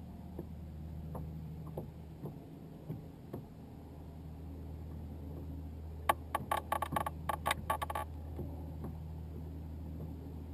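A steady low hum with faint scattered ticks. About six seconds in comes a quick run of sharp clicks lasting about two seconds, as a baitcasting fishing reel is worked.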